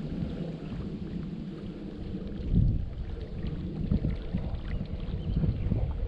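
Wind buffeting the microphone: an uneven low rumble that surges in gusts, the strongest about two and a half seconds in.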